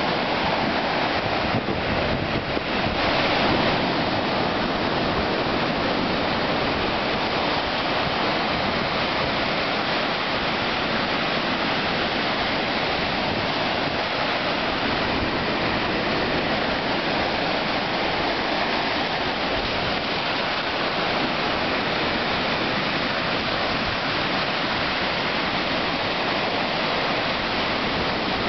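Ocean surf breaking and washing up over a sandy beach: a steady, even rush of water with no pauses.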